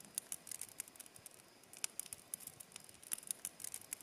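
Newly lit campfire of dry twigs and kindling crackling, with irregular sharp pops and snaps over a faint hiss.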